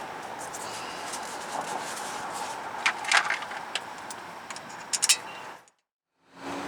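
Hand work on the vehicle's front end: a few sharp clicks and clinks of parts or tools being handled, about three seconds in and again around five seconds in, over a steady background hiss. The sound cuts out briefly near the end.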